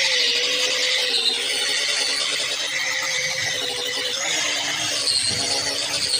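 Electric angle grinder with a sanding disc running steadily as it sands down the face of a coconut-wood cricket bat: a constant motor whine that wavers a little in pitch, under the hiss of the abrasive on the wood.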